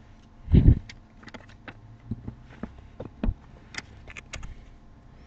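Hockey trading cards being handled and flipped through by hand: a scatter of light clicks and taps, with one louder, duller knock about half a second in.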